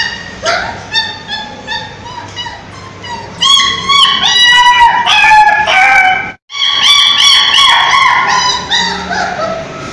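Dog whining and yelping in quick, high-pitched cries, one after another. The sound cuts out completely for a moment about six and a half seconds in, then the cries carry on.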